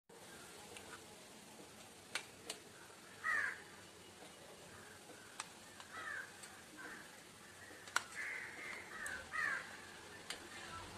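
Crows cawing in the background, a couple of calls about three seconds in and a run of caws from about six to nine and a half seconds. A few sharp clicks, as of a plastic spoon tapping a bowl, fall between them.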